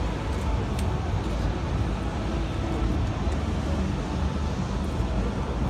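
Exhibition-hall ambience: a steady low rumble with indistinct crowd chatter mixed in.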